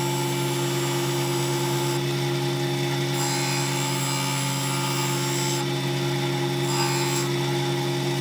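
Combination belt and disc sander running with a steady motor hum, a small glued-up hardwood pen blank held against the spinning disc. The sanding hiss swells and eases a few times as the wood is pressed on and let off.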